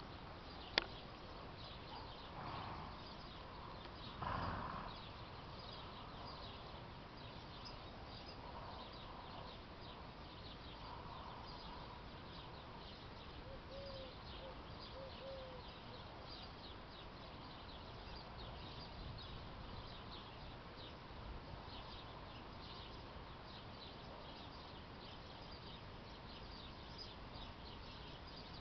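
Faint hoofbeats of a horse moving at a slow gait over soft arena dirt, with faint high chirps in the background. There is a sharp click just under a second in, and two short louder noises about two and a half and four and a half seconds in.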